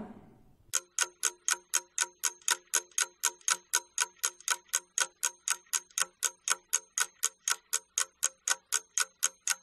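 Clock ticking, used as a timer sound effect while pupils do a task: a steady run of sharp ticks at about four a second, starting just under a second in.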